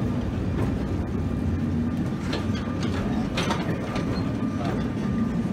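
Vintage Sóller electric tram and its open trailer car rolling past on street rails: a steady low rumble of wheels on track, with a few sharp clicks about halfway through.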